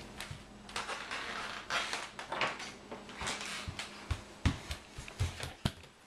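Footsteps on a hardwood floor: a few dull thumps in the second half, after a stretch of rustling.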